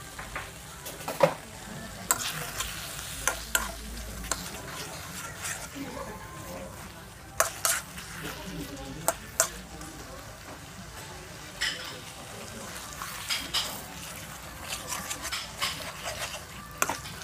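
A metal spoon stirring a balti curry in a steel balti dish, clinking and scraping against the metal at irregular intervals over the steady sizzle of the sauce cooking in the pan.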